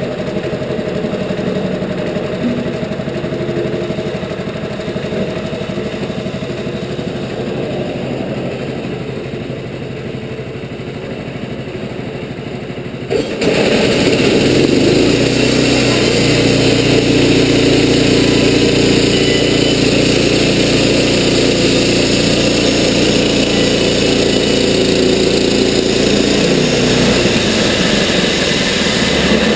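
Wood-Mizer LT15 portable bandsaw mill's engine idling, then throttled up suddenly about halfway through and running loud and steady as the band blade saws through a cedar log. The tone of the engine shifts a little near the end.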